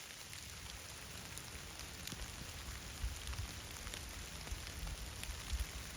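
Steady rain falling, with many separate drops ticking irregularly over a constant patter.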